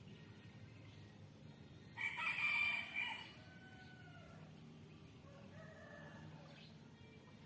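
Rooster crowing: one loud crow about two seconds in, lasting a little over a second, followed by fainter pitched calls.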